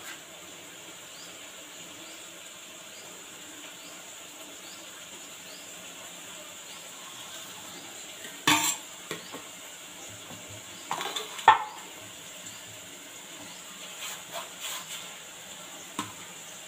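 A few sharp knocks and clatters of a stainless steel bowl being handled on a kitchen counter: a loud one about halfway through and a cluster about two-thirds of the way in, with lighter taps later, over a steady faint hiss.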